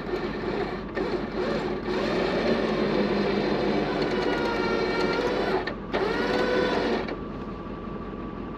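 Tow truck winch running under load, reeling in its cable on a stuck SUV: a steady machine whine that starts about two seconds in, breaks off briefly near six seconds, runs again for about a second, then cuts off.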